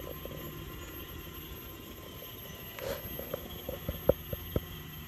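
Hefty-E battery-electric tractor running slowly with a steady electric drive hum, a few faint steady tones over it. From about three seconds in comes a short run of sharp clicks and knocks, the loudest about four seconds in.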